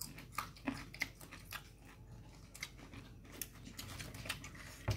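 Close crunchy chewing and biting of raw vegetables such as cabbage and long beans: irregular crisp crunches a few times a second, with one sharper knock near the end.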